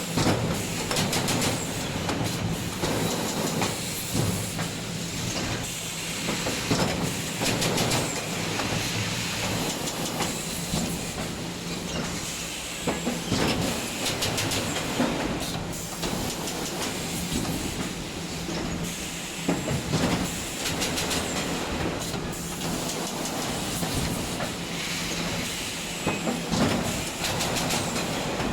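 Wire mesh welding machine running: a steady low hum under a continuous noisy clatter of irregular clanks and clicks, with air hiss.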